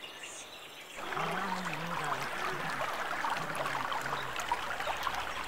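Water trickling and splashing, starting about a second in, under soft background music with a slow melody.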